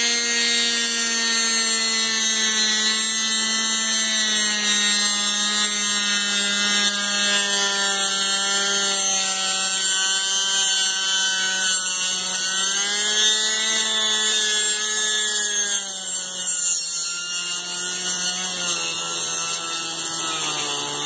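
Dremel rotary tool on a flex shaft, running steadily with a high whine and a grinding hiss as its cutter bit eats into a port of a Husqvarna 372 XP chainsaw cylinder. Its pitch sags a little now and then under load as the bit works through the top of the port, the hard first cut.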